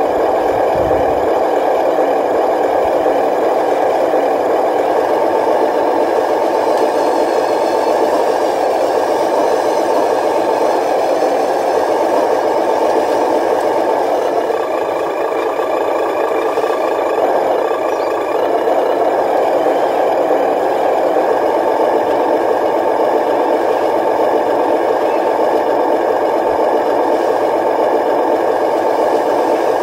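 Radio-controlled model dump truck running its tipping mechanism: a steady mechanical whir with a rattle as the bed lifts and the dirt load tips out.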